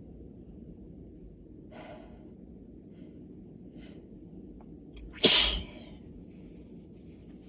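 A person's allergy sneeze: a single sharp, loud sneeze about five seconds in, preceded by a catching inhale near two seconds in and a couple of faint breaths.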